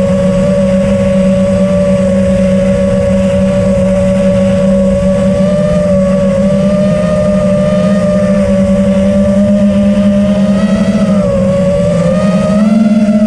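Steady whine of an FPV racing quadcopter's four Xing 2306 2450kv brushless motors and HQ S4 props, heard from on board while it holds a cruise. The pitch dips briefly about eleven seconds in and rises again near the end as the throttle changes.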